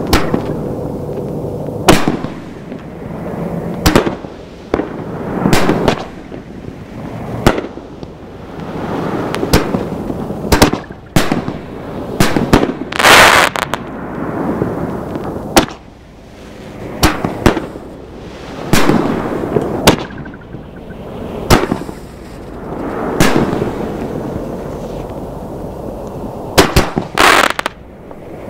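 Consumer reloadable artillery shells from the Bombas de la Muerte assortment being fired in succession. Sharp reports of launches and breaks come every second or few seconds, with hissing between them and one long, loud crackling burst about halfway through.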